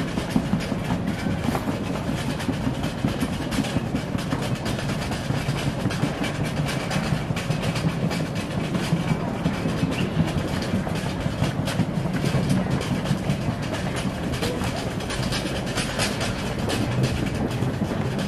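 Walking through an airport concourse: a steady rumble of footsteps and wheeled luggage on the tiled floor, with many small irregular clicks as the wheels run over the tile joints.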